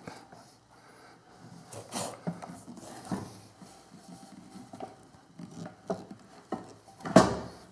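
Light, scattered knocks and scrapes of a pocket-hole jig and pine board being shifted and pressed into position, with a louder knock about seven seconds in.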